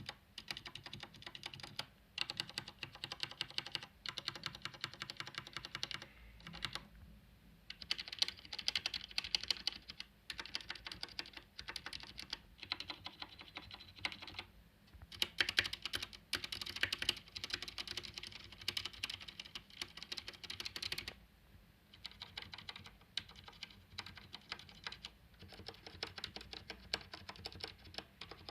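Maibenben MKD04-B1 mechanical keyboard with Cherry MX switches and PBT keycaps being typed on in quick runs of keystrokes, with short pauses between the runs.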